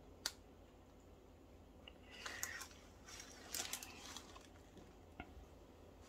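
Faint handling noises from gloved hands working a wooden stick around a resin coaster in a silicone mould: a sharp click just after the start, two short spells of soft scratchy noise in the middle, and a small click near the end.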